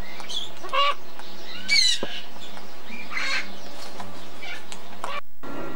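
Green-winged macaw squawking: a few short, harsh calls, the loudest about two seconds in.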